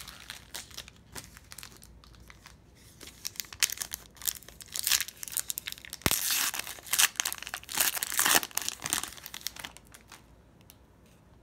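Foil wrapper of a Panini Prizm football card pack crinkling and being torn open by hand, loudest in the middle stretch, with a sharp snap about six seconds in.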